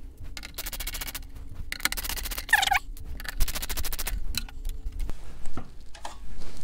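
Phillips screwdriver backing screws out of an amplifier's sheet-metal top cover: several runs of rapid clicking with a brief squeak about halfway through, then a few scattered clicks as the loose screws are handled.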